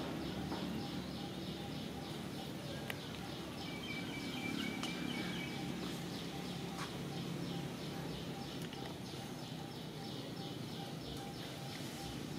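Rapid high chirping from a calling animal, about four even chirps a second, over a low background rumble.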